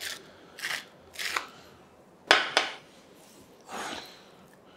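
Salt mill grinding in short twists over raw venison, then a sharp double knock about halfway through and a soft rustle of hands working the meat near the end.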